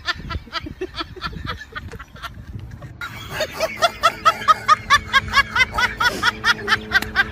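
Rapid, high-pitched giggling laughter, about seven short 'ha' syllables a second, over background music. A steady low hum comes in about three seconds in.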